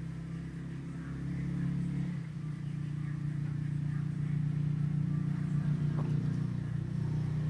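Steady low motor hum, shifting in tone about two seconds in.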